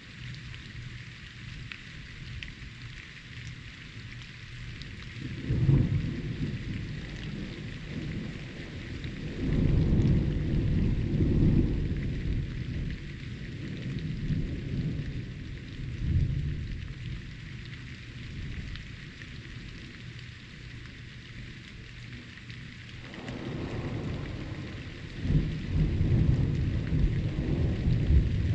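Steady rain hiss with rolls of thunder. A sudden clap about five seconds in, a longer rumble around ten seconds, a short one near sixteen, and thunder that builds from about twenty-three seconds to a sharp crack near twenty-five and keeps rumbling.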